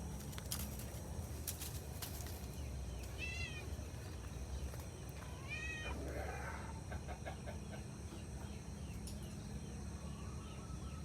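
Cat meowing twice, two short rising-and-falling meows about three and five and a half seconds in, over a steady low outdoor rumble.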